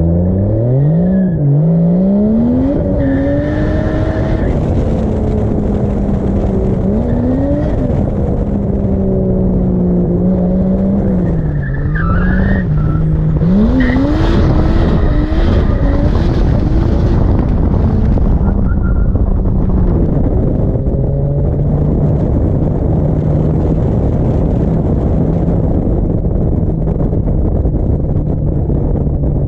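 Turbocharged drift car's engine, a swapped Toyota 2JZ, revving up and down and holding steady in stretches, with tyre noise through the drift.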